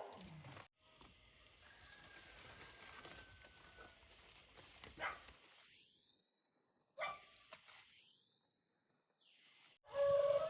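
Faint outdoor farm background with a few short animal calls about five and seven seconds in. The sound drops out abruptly a few times.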